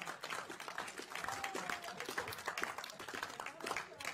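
A room of people applauding, with many overlapping hand claps.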